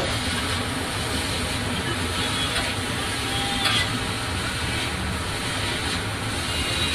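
Noodles stir-frying on a large flat iron griddle: a steady sizzling hiss, with a few faint clinks and scrapes of metal spatulas as the noodles are tossed.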